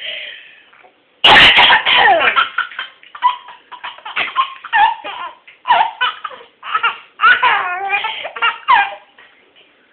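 A woman coughs once, loud and sudden, about a second in, then a baby laughs at the coughing in many short fits of belly laughter.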